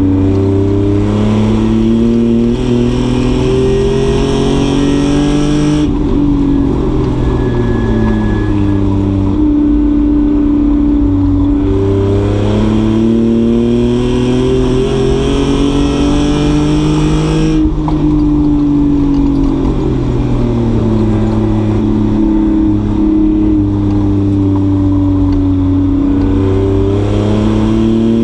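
Race car engine at speed on a track, its pitch climbing under acceleration and falling back as it slows, several times over, with a sudden break in the pitch about six seconds in and again near eighteen seconds.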